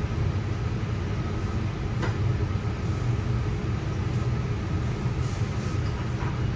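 Steady low rumble of restaurant room noise, with a couple of faint clicks.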